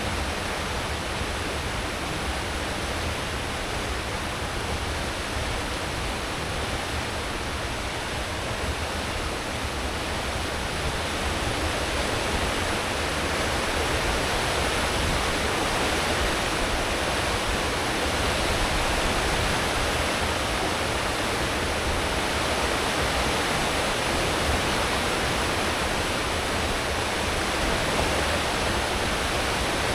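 Steady rushing churn of a cruise ship's wake water, with a low rumble from the ship's engines and propellers underneath. It grows slightly louder about halfway through.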